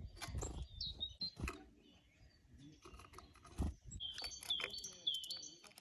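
Small songbirds at a feeder chirping, with a quick run of three or four short falling notes about four seconds in, and light taps and scuffles of the birds on the feeder.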